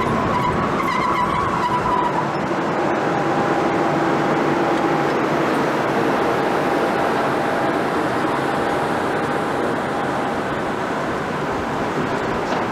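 Electric locomotives standing with their equipment running: a steady rushing noise with faint, steady whining tones.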